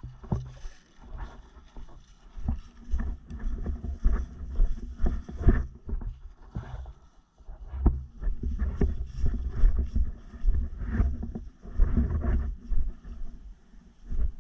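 Rumbling wind and handling noise on the microphone, coming in irregular gusts, with scattered short knocks and rustles.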